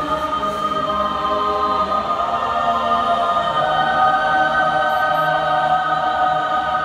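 Mixed SATB choir singing a cappella, holding long sustained chords in several voice parts near the close of the piece.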